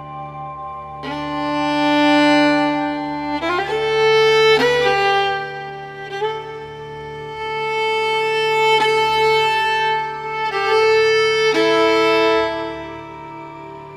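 Background music: a slow melody of long held notes on a bowed string instrument over a steady low drone.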